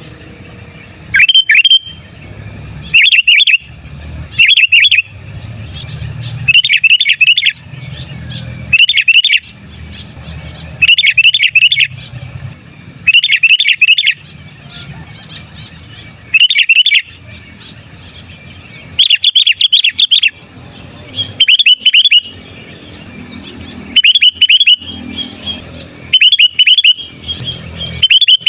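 Sooty-headed bulbul (kutilang) singing in short, loud phrases of quick chirping notes, one phrase about every two seconds.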